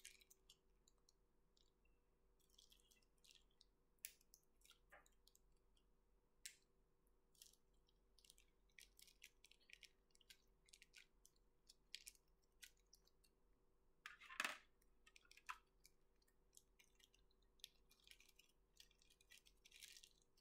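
Faint crinkling and ticking of a small clear plastic parts bag handled between the fingers, in short scattered crackles that are loudest about fourteen seconds in. A faint steady hum runs underneath.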